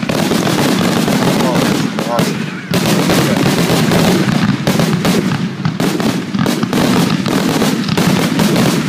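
Fireworks going off in a dense, rapid run of crackling pops with no pause, like machine-gun fire.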